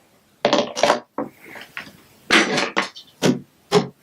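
Plastic Lego Duplo bricks and figures clacking and rattling as they are handled and moved, in a series of short clatters.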